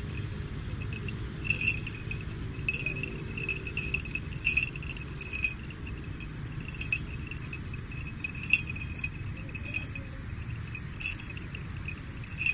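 A sheep bell clinking irregularly as the sheep moves, the strikes coming in uneven clusters, over a low steady rumble.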